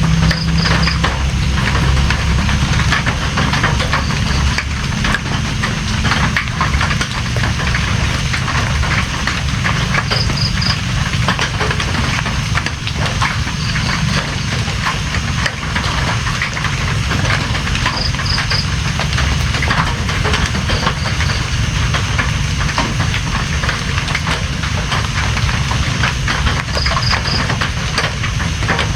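Steady heavy rain: a dense, continuous patter of drops over a low rumble.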